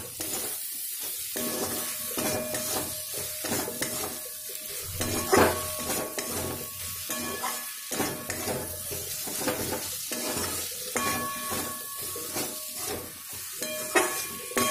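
Fried spiny gourd pieces sizzling in tomato-onion masala in a steel kadhai while a metal spatula stirs and scrapes them around the pan, in repeated strokes with the pan ringing faintly. A louder knock of the spatula comes about five seconds in.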